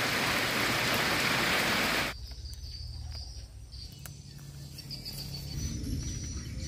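Heavy rain pouring down on forest, cutting off abruptly about two seconds in. After that comes a much quieter low rumble with a faint, thin high tone and a few light clicks.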